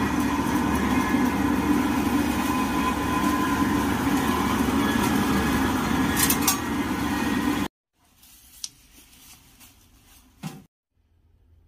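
Down-separating (down-ripping) machine running with a loud, steady mechanical drone and whine as it tears open a down jacket to separate the down from the fabric; the noise cuts off abruptly about two-thirds of the way through. After that there are only faint handling noises and one short knock.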